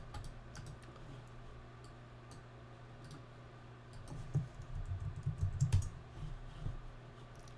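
Computer keyboard typing and mouse clicks, quiet and scattered, with a denser run of keystrokes from about four to seven seconds in.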